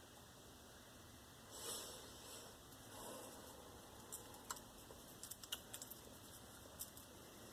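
Faint, scattered sharp clicks of a budgerigar cracking seed husks with its beak, coming in a quick cluster in the second half, after a brief soft rustle about two seconds in.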